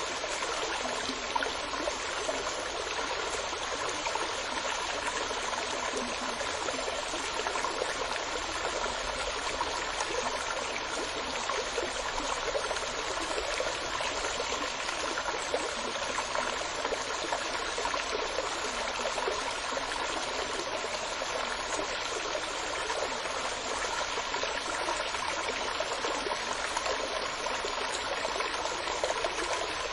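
Running water, a steady, unbroken rush like a flowing stream.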